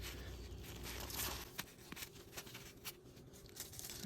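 Faint rubbing and scraping with scattered light clicks as dirt is cleaned off around a bolt on a dirt bike's engine case.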